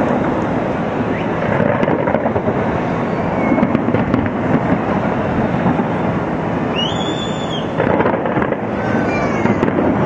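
Fireworks display: a continuous barrage of bangs and crackles running together into a steady rumble, with a brief high whistle about seven seconds in.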